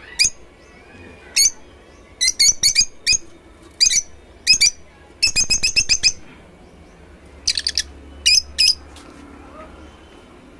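Caged lovebirds calling in short, high-pitched chirps, some single and some in quick clusters, with a rapid chattering run about halfway through.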